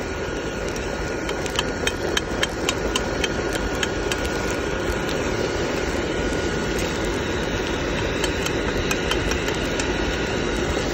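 Steady rush of the air blower feeding a bucket coal forge, with a faint steady whine. Over it, a metal spatula clicks and scrapes against the frying pan as scrambled eggs are stirred, most busily a second or two in and again near the end.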